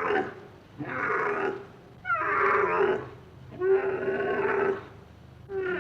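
A farm animal calling over and over: about four separate pitched calls, each under a second long, coming roughly every second and a half.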